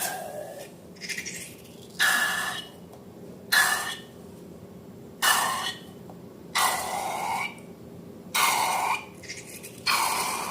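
Rubber balloon being handled, giving a series of short squeaky scrapes, one about every second and a half.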